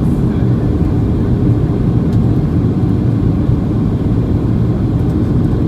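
Steady low rumble of engine and airflow noise inside the cabin of a Boeing 737-800, heard from a seat over the right wing.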